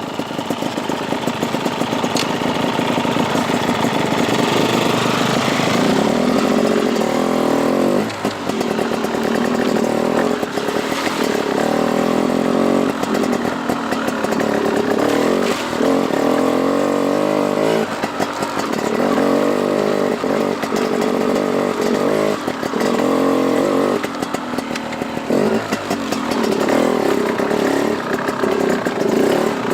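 Dirt bike engine pulling under throttle on a trail ride. Its pitch rises and falls, and it drops off briefly every few seconds as the throttle is closed and then picked up again.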